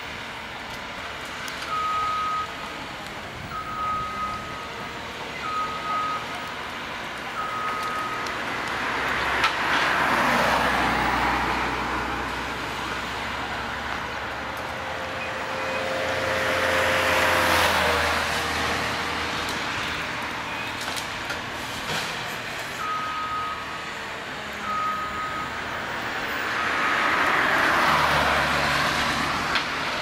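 John Deere 1470E forestry harvester's diesel engine running and rising in pitch three times under load as the crane and harvester head work. Its reversing alarm beeps four times, about two seconds apart, near the start and three times near the end.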